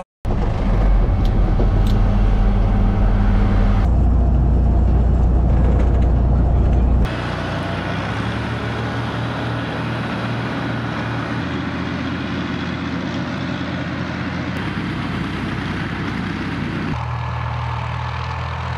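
Engine of a Tor-M2 tracked air-defence vehicle running steadily, a heavy low rumble. It is loud for the first seven seconds, then drops to a quieter steady drone across several cut-together shots.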